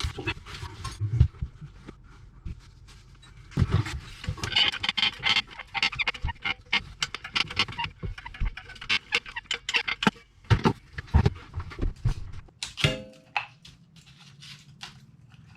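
Aluminium foil crinkling and rustling as it is handled and shaped, with scattered clicks and knocks, and a brief squeak near the end.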